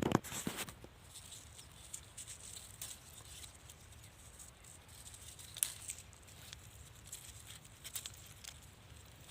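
Irregular light crackling, rustling and clicking, with a louder knock right at the start and a sharp click about halfway through.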